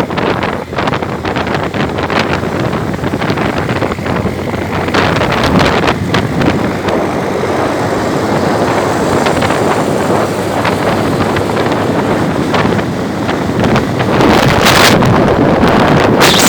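Heavy wind rushing and buffeting over the microphone of a motorcycle moving at speed, with the bike's running noise beneath it. It gets louder near the end.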